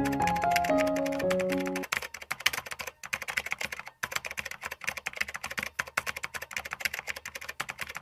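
Background music with slow held melody notes stops about two seconds in. Rapid typing clicks, a keyboard sound effect, run under it and go on alone after the music ends.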